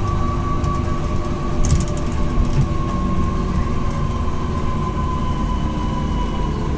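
A bus running along an elevated busway, heard from inside the cabin: a steady low rumble of drive and tyres with a whine that drifts slowly lower. A few light rattles come about two seconds in.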